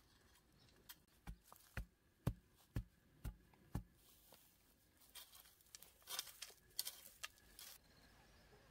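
A digging bar with a metal blade striking dry earth around a bamboo post, six thumps about half a second apart. Then a few seconds of scraping and rustling in soil and dry grass.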